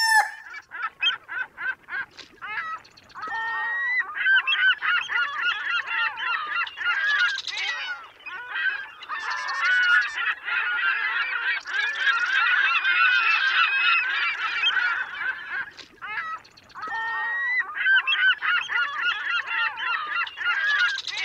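A flock of geese honking, many calls overlapping, in long dense stretches broken by a few short pauses.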